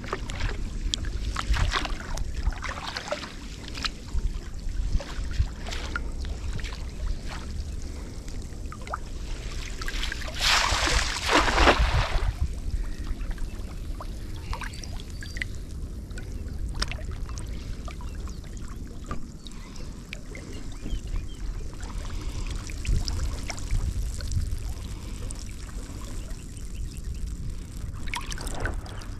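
Water splashing and trickling at the edge of the water, with scattered small splashes and one louder splash lasting about a second and a half around a third of the way in, over a steady low rumble.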